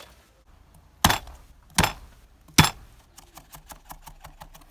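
Garlic being cut on a wooden cutting board with a chef's knife: three heavy knocks on the board, then fast chopping at about six strokes a second.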